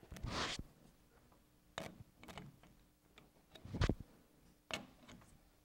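Quiet, scattered clicks and knocks of a chuck key working the jaw screws of a lathe's four-jaw chuck as the jaws are loosened and tightened one at a time to centre the work. There are about six short clicks, the loudest a knock a little before four seconds in.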